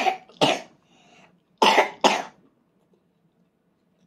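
A toddler coughing into her hand while eating: four coughs in two pairs, the sign of food or drink going down the wrong way.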